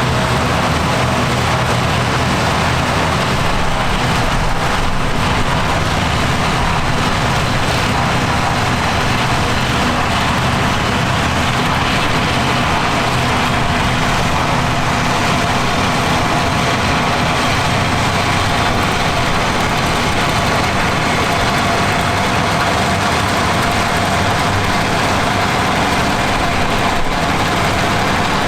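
Vintage tractor engine running at a steady speed, with a constant rushing mechanical noise over it.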